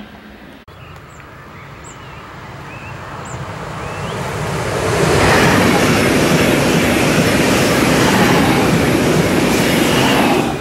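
A train approaching, growing louder over about four seconds, then passing close by with a loud, steady rush of wheel and rail noise. Birds chirp faintly while it approaches.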